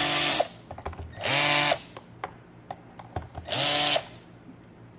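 Power drill-driver driving screws into a plastic housing in three short bursts, each spinning up and winding down, with small clicks in between. It is set to a low clutch setting so the screws stop at snug without stripping the plastic.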